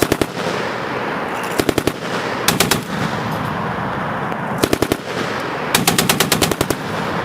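An American machine gun firing five short bursts of a few rounds each, at about ten shots a second. The last burst, near the end, is the longest at about a second.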